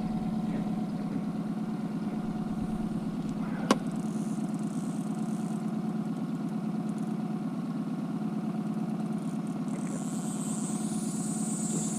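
Outboard motor running steadily at trolling speed, with a single sharp click a little under four seconds in and a high hiss that comes and goes twice.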